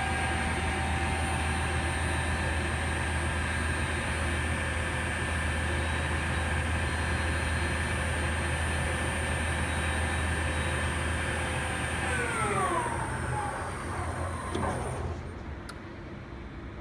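Harrison Alpha 1550S CNC lathe running with a steady hum and whine. About twelve seconds in it spins down, the whine falling in pitch until it dies away.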